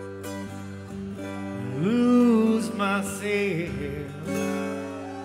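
Background song: strummed acoustic guitar with held notes, and a voice singing a wavering phrase in the middle.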